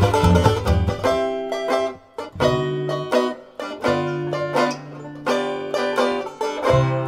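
Background music: a quick tune of plucked string notes. It thins out briefly about two seconds in, and a low note is held for a couple of seconds in the middle.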